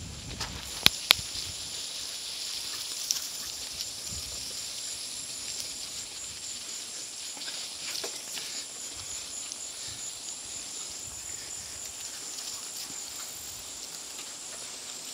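Steady high-pitched insect chorus with a faint pulsing, and two sharp clicks about a second in.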